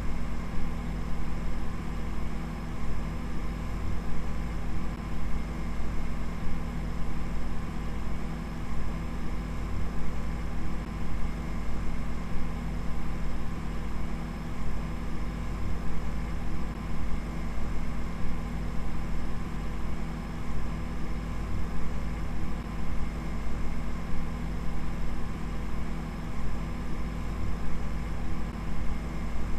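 A steady, dense drone: a heavy low rumble with several fixed hum tones and a hiss above it, fluttering quickly in loudness but otherwise unchanging.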